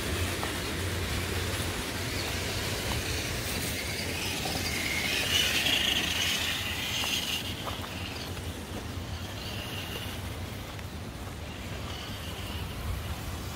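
Electric motor and drivetrain of a radio-controlled crawler truck whining as it drives, swelling louder about five to seven seconds in, over a steady low rumble.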